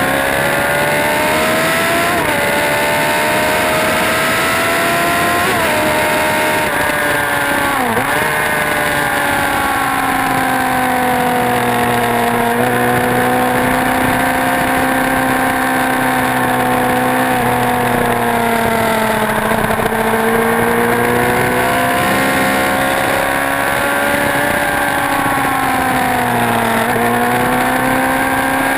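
Motorcycle engine running hard on a race track, its pitch climbing and dropping as it accelerates and slows, with quick dips where it changes gear, over a steady rush of noise.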